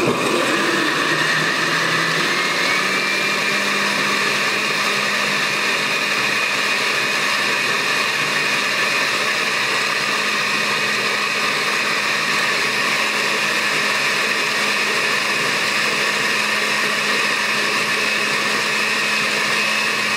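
Red Oster countertop blender running on high, puréeing soaked chilaca chiles with garlic and onion into a thick red sauce. Its motor pitch rises a little a few seconds in, then holds steady.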